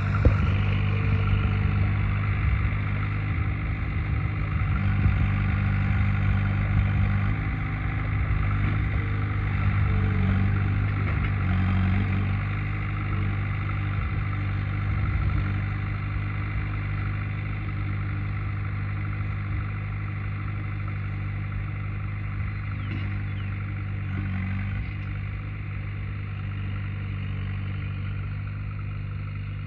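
Engine of a large farm machine picking up square hay bales, running steadily at a fairly even speed and growing a little quieter in the second half.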